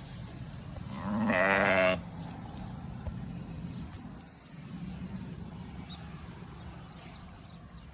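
A sheep bleats once, a loud wavering call of just under a second.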